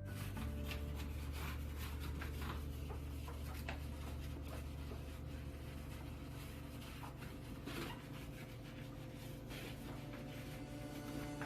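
Light rubbing and scraping with scattered small clicks and knocks, over a steady low hum.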